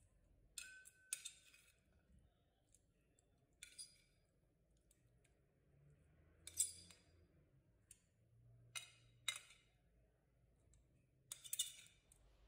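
Sparse, light clicks and clinks of ceramic crockery, a serving bowl touching a plate of couscous as vegetables are tipped on. There are about six short knocks, the loudest a little past halfway.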